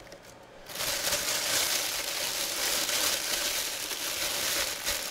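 Clear plastic bag crinkling and rustling steadily as hands work it around a football helmet, starting about a second in.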